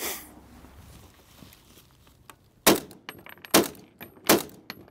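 M1915 Howell self-loading rifle, a gas-operated Lee-Enfield conversion in .303 British, fired three times in quick semi-automatic succession, about a second apart, with the gas piston cycling the bolt between shots. A brief knock sounds right at the start.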